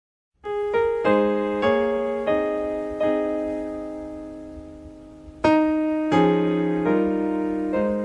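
Piano introduction to a slow ballad: after a moment of silence, a string of chords is played, each struck and left to ring and fade. About halfway through one chord is held and dies away before the playing picks up again with new chords.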